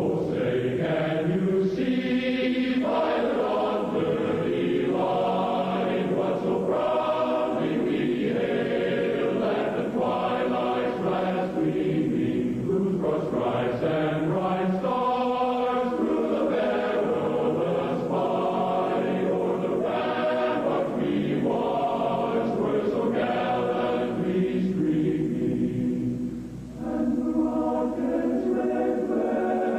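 Choral music: a choir singing sustained, slowly changing chords, dipping briefly about 26 seconds in.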